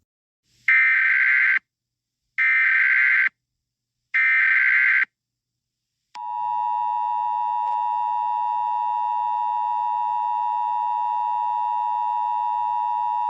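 Emergency Alert System tones: three short bursts of the SAME header's digital data tones, each under a second long and evenly spaced. About six seconds in, the steady two-tone EAS attention signal starts and holds, announcing that an emergency message is about to follow.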